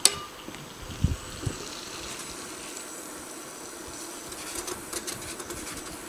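Lamb loin sizzling in melted butter in a nonstick frying pan: a steady hiss with a few crackles near the end. A sharp click at the start and two dull knocks about a second in.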